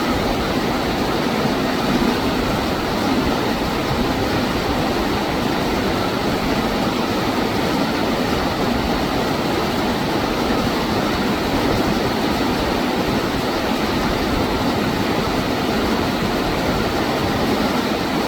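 Steady rushing noise of flowing stream water, unbroken and even.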